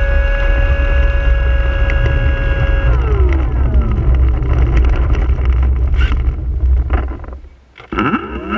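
RC T-28 model plane's propeller motor, heard from a camera on the plane. It holds a steady high whine for about three seconds, then winds down, leaving a low rumble, and revs up again near the end.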